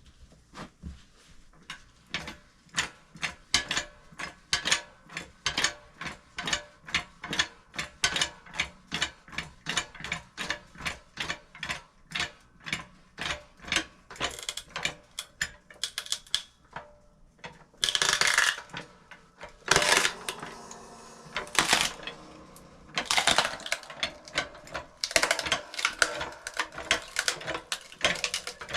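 Central Machinery 10-ton hydraulic log splitter being worked by its pump handles, a regular mechanical clicking about twice a second. In the second half, louder, longer noisy bursts come in among the clicks.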